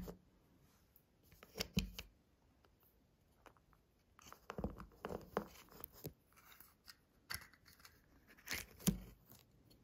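Faint handling of glass cover slips: scattered light clicks and rustles, in clusters near 2 s, from about 4.5 to 6 s, and around 9 s, as a cover slip is picked out for a wet-mount microscope slide.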